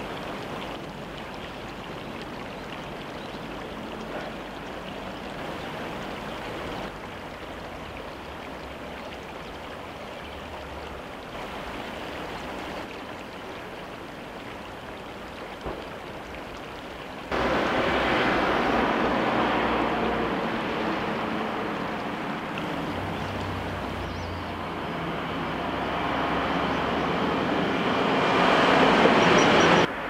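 Steady rushing of flowing river water. It jumps abruptly louder about halfway through and swells further near the end.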